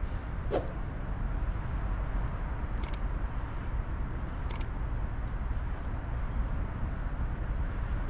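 Wind buffeting the camera's microphone in a snowstorm: a steady low rumble, broken by a few sharp clicks about half a second, three seconds and four and a half seconds in.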